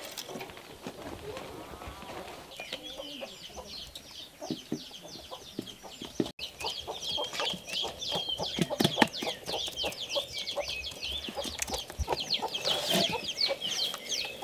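Chicks peeping in a rapid, continuous stream of short falling chirps, starting a couple of seconds in. Under them are wet squelches and soft knocks of hands rubbing chili mash into fish pieces in a steel bowl.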